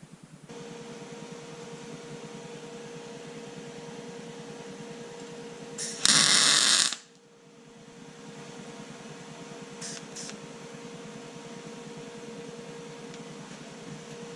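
A small motor running with a steady hum and a constant tone. About six seconds in, a loud hiss lasting about a second cuts across it, and two faint ticks follow a few seconds later.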